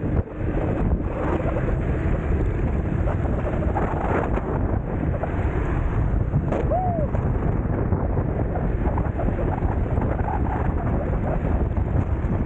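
Wind buffeting the microphone during a fast electric scooter ride, a steady rumbling rush. About halfway through there is one brief squeak that dips and rises in pitch.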